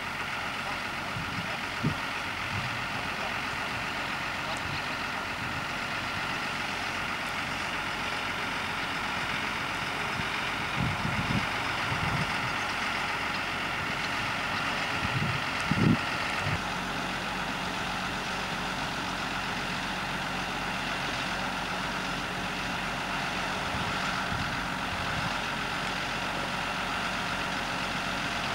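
Tractor engine running steadily while working the hydraulics that tip a trailer bed and raise a lattice antenna mast; the engine note changes about two-thirds of the way in. A few low thumps come in the middle.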